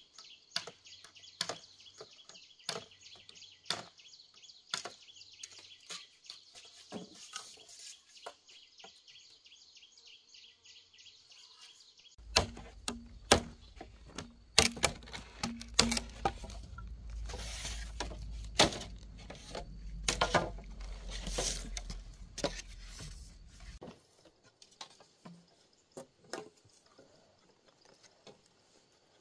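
Machete chopping and trimming a bamboo pole: a run of sharp, uneven knocks, loudest about halfway through, over a low rumble. Before that come lighter taps over a steady high drone.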